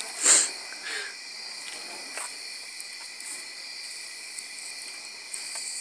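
Crickets chirring in a steady high chorus, with one loud short whoosh about a third of a second in and a couple of fainter whooshes after it, as the burning fire staffs swing past.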